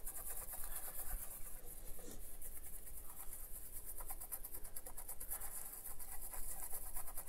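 Toothbrush bristles scrubbing a video card's circuit board with alcohol to clean off flux residue after soldering: a rapid, steady run of back-and-forth brushing strokes that stops at the very end.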